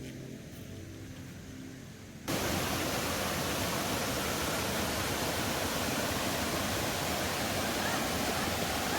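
Steady rush of a waterfall, an even hiss across all pitches that cuts in suddenly about two seconds in.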